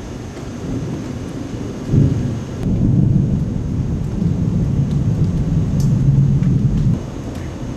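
Thunder rumbling low for about five seconds after a lightning strike, coming in suddenly about two seconds in and dropping away abruptly near the end.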